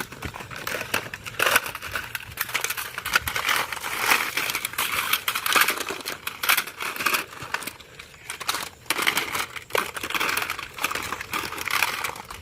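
Irregular crinkling and crackling, a dense run of small sharp clicks and rustles that rises and falls in loudness.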